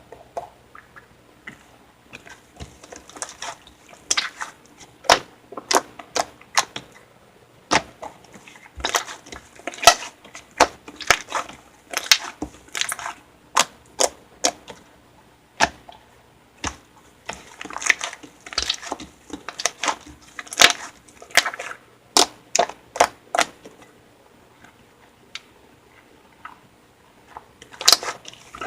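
Slime being squeezed and poked by hand, giving irregular runs of sharp clicking pops with short pauses between them.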